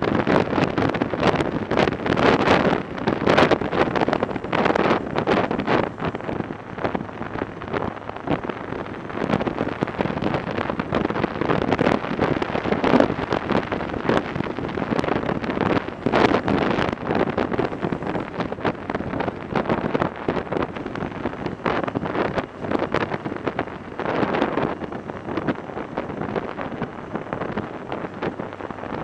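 Wind rushing over a helmet-mounted microphone on a Yamaha XJ 900 Diversion motorcycle riding at road speed, surging and easing in uneven gusts, with the bike's vehicle noise underneath.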